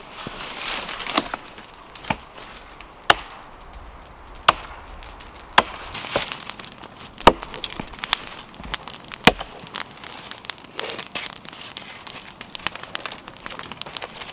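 Hatchet chopping wood: about eight sharp blows, roughly a second apart, over the first nine seconds, then lighter knocks and cracks.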